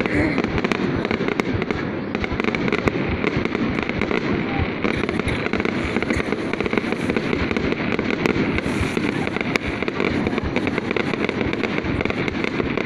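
Fireworks going off in a dense, unbroken barrage of overlapping pops and crackles.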